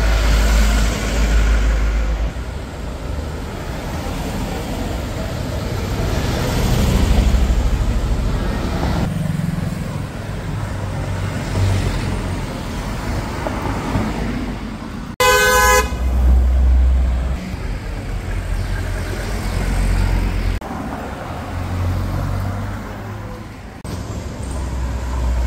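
Cars driving past with their engines running, a steady low rumble that swells and fades. About fifteen seconds in, a single short car horn blast of about half a second.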